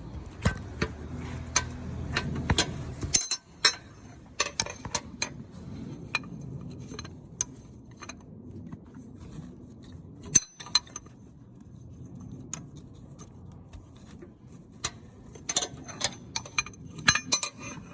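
Irregular metal clicks and clinks of a 13/16 box-end wrench working on an engine's oil pressure switch, with sharper clusters near the end.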